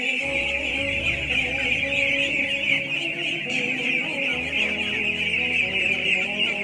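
A large flock of young ducks calling all at once, a dense, continuous high-pitched chatter, with low sustained music underneath.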